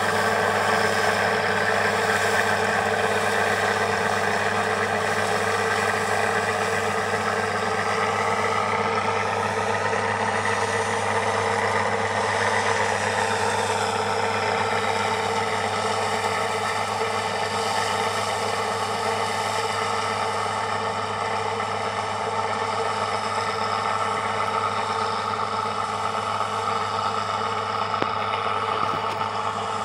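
Farm machinery engine running steadily at a constant speed, a continuous drone with a higher whine over it that shifts in pitch about halfway through.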